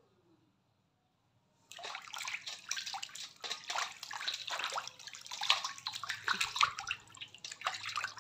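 Water splashing and sloshing in a metal basin as a hand rubs and turns a strip of raw pork belly to wash it. It starts about two seconds in and goes on irregularly.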